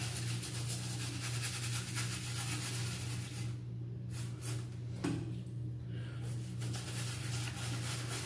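Shaving brush rubbing lather into a thick beard, a steady scratchy swishing that stops twice briefly, over a constant low hum.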